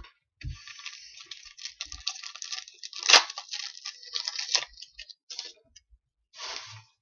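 Trading card pack wrapper crinkling and tearing as a pack is ripped open, with a sharp crack about three seconds in and a shorter rustle near the end.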